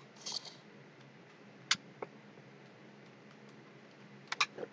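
A few sharp, isolated clicks over a faint steady hum and hiss: one less than two seconds in, a fainter one soon after, and a quick cluster near the end.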